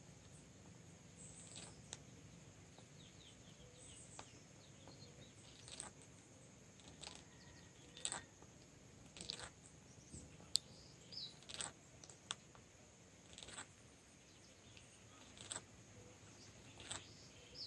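Near silence broken by faint, short bird chirps and clicks every second or two, over a steady faint high hiss.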